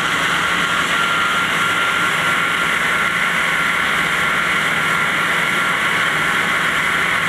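Diamond wire saw running in a stone quarry: a steady, loud hiss with a thin, high, even whine.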